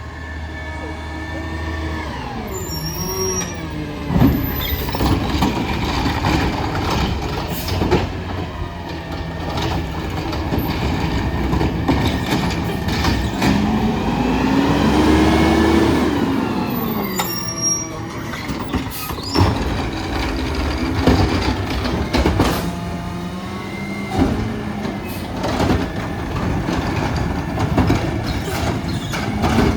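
Garbage truck working a pickup: the engine and machinery whine up and down in pitch, with high squeals, clanks and hisses. The truck is making an odd squealing sound.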